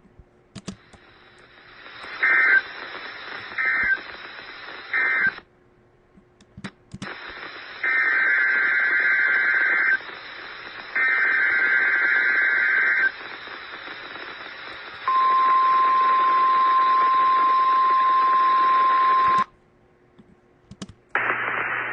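Weather-radio alert signalling over radio hiss: three short warbling digital-data bursts (SAME end-of-message codes), then two longer SAME data bursts, then the steady 1050 Hz warning alarm tone held for about four seconds. Together they mark the end of one warning message and the header of the next.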